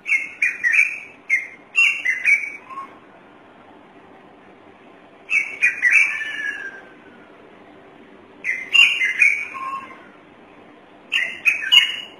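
A thick-knee (karawan) calling: four bursts of shrill, rapid whistled notes a few seconds apart, some of them falling in pitch.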